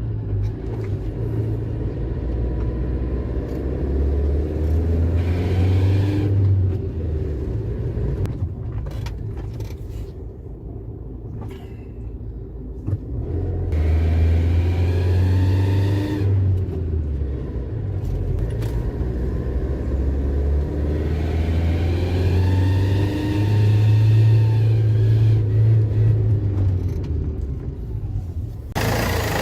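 Car engine revved up and down about three times, then a louder rev begins near the end; an exhaust leak at the exhaust manifold gasket makes the engine loud above about 2500 rpm.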